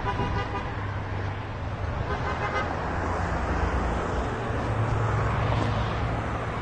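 Steady road traffic noise from cars running past on a busy multi-lane road. Two faint short tones sound over it, near the start and about two seconds in.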